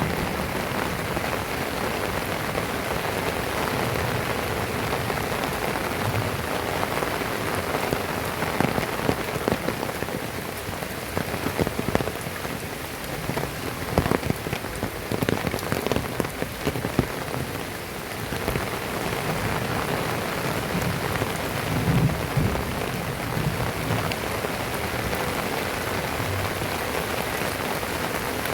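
Heavy rain falling steadily on surfaces, with sharp, louder drop hits scattered through it, most in the middle stretch.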